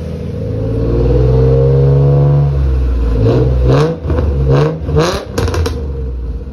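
Lexus SC's engine revved from idle to about 2,500 RPM and held for about two seconds, then blipped quickly four or five times before dropping back toward idle. The exhaust still has a leak at the back of the header, just under a bolt.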